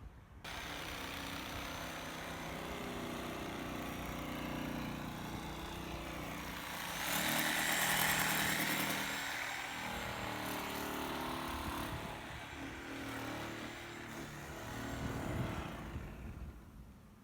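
An engine running steadily, with a louder rushing surge about seven to nine seconds in.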